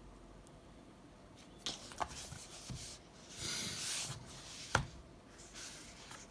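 Light handling noises from objects being moved around by hand: a few sharp clicks or taps, and a brief rustling scrape about three and a half seconds in.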